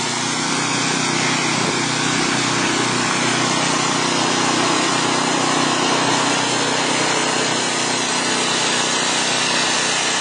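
Snowblower's small gasoline engine running steadily under load while it is pushed through heavy, wet snow as a plow.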